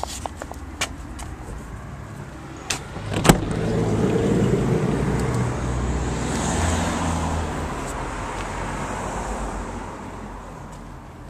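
A car passing by: its engine and tyre noise swell about three seconds in and fade away over the next several seconds. Before that come a few light clicks and a sharp knock.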